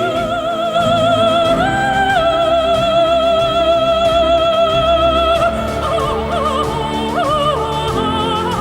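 Operatic singing over orchestral music: one long note with vibrato, held and stepped up once, then a run of several shorter notes near the end.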